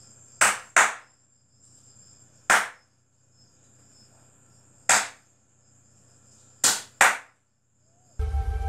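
Hand claps: a quick double clap, then two single claps a couple of seconds apart, then another double clap. They are the signal that switches a homemade sound-activated light. Music comes in just at the end.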